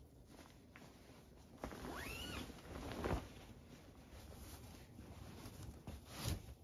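Duvet cover zipper being pulled, one quick zip about two seconds in, amid the rustle of the fabric cover being handled.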